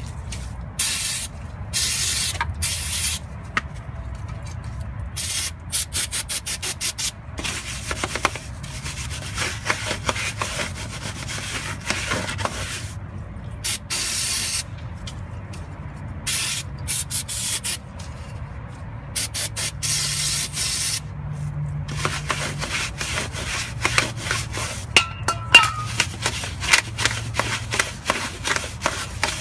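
Aerosol carb, choke and parts cleaner sprayed in short hissing bursts, alternating with a brush scrubbing quickly back and forth on the truck's hub mounting surface. This is the area being cleaned of dirt and rust before the new hub assembly is fitted.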